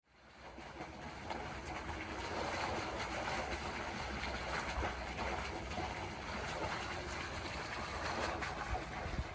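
Water gushing from a hose pipe into a concrete pool, a steady splashing that fades in over the first second.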